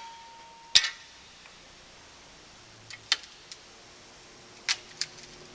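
Sharp clicks from the magnetic chuck's controls on a Blanchard No. 20-36 rotary surface grinder as the magnet is put under power. A brief steady hum is cut off by a loud click under a second in, followed by a few scattered lighter clicks.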